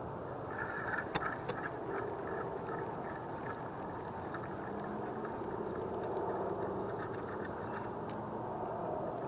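Spinning fishing reel being worked, giving a run of quick clicks for about three seconds near the start, over a steady low background rumble.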